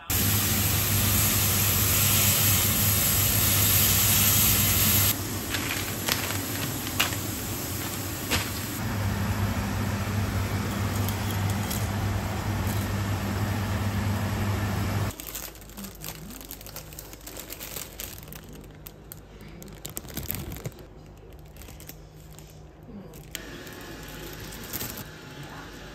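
A pot cooking on a stovetop gives a steady hiss over a constant low hum, with a few clicks of metal tongs against the pot. About fifteen seconds in this gives way to quieter rustling and clicking as plastic packaging and a plastic container are handled.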